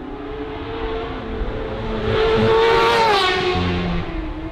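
Classic superbike racing motorcycle coming up the road under power, its engine note growing louder and rising slightly, then passing close by about three seconds in with a sudden drop in pitch as it goes away.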